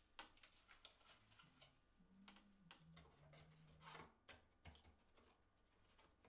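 Faint clicks, taps and light rustles of hands handling cardboard packaging and small items on a desk, lifting an insert out of a lens box.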